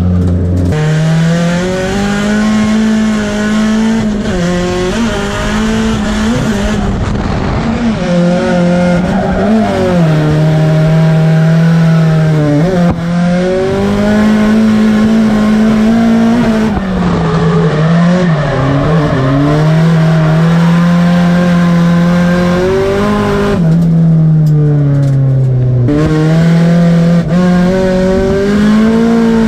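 Drift car's engine heard from inside the cabin, revving high and falling back again and again with the throttle, over constant tyre squeal as the car slides.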